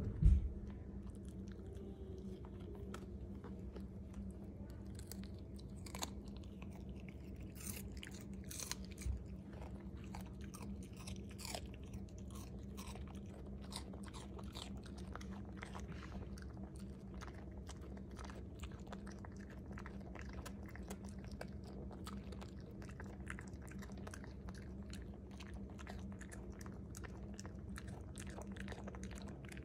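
A dog chewing and crunching a piece of raw red bell pepper, with many small wet crunches and clicks of the jaws, and a single thump just after the start. A steady low hum runs underneath.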